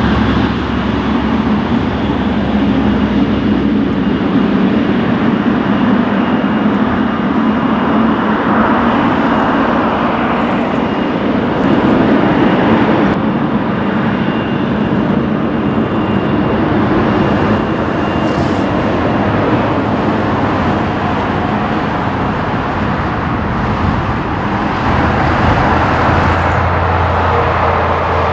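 Boeing 777-300ER's GE90 jet engines running at taxi power as the airliner rolls slowly past, a steady loud jet noise with a thin high whine. The low rumble strengthens near the end and a tone slides lower in pitch as the engine passes.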